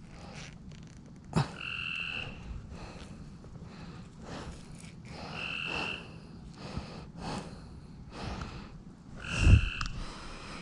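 Frogs calling: a short two-toned trill that repeats about every four seconds, with a few low knocks in between, the loudest near the end.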